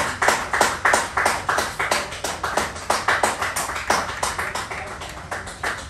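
Hand clapping from a few people close by: sharp separate claps, several a second, thinning out near the end.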